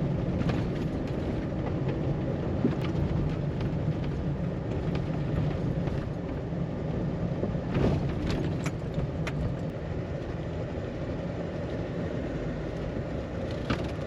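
Pickup truck driving through snow in two-wheel drive: the engine runs steadily under a low rumble of tyre and road noise, with a few light knocks about two-thirds of the way through.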